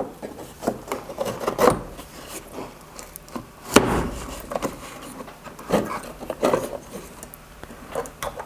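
Clicks, knocks and rubbing as the amplifier's circuit board is handled and fitted back into its casing, with a sharper knock about four seconds in.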